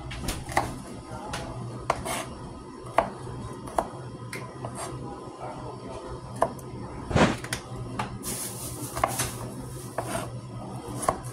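Irregular clicks and knocks of kitchen utensils: a metal slotted spoon against a pan of simmering ground beef, then a knife dicing a red onion on a plastic cutting board. The loudest knock comes about seven seconds in.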